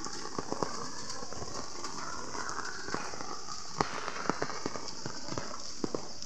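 Steady rain falling, a continuous hiss with scattered sharp ticks of drops striking nearby surfaces.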